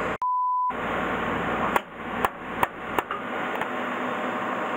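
A short steady censor bleep near the start, then four sharp clicks about half a second apart over a steady machine hum.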